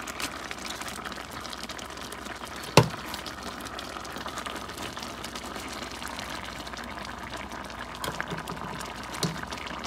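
Tomato-based Creole sauce simmering and bubbling in a frying pan, with one sharp clack about three seconds in and a few lighter knocks near the end as pieces of fried fish are laid into the sauce with a utensil.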